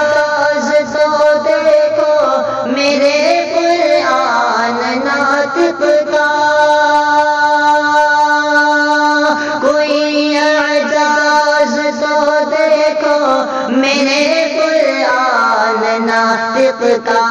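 A young man's voice singing an Urdu naat unaccompanied, drawing out long melodic notes that bend and hold, with no clear words.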